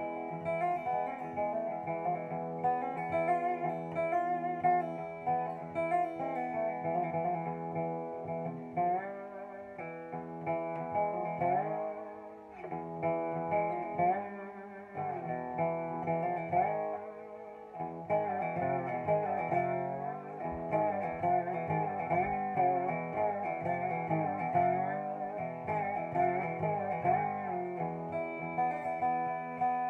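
Dobro resonator guitar played lap-style with a slide bar and fingerpicks, unaccompanied: picked notes ringing on with pitch slides between them, the slides thickest through the middle.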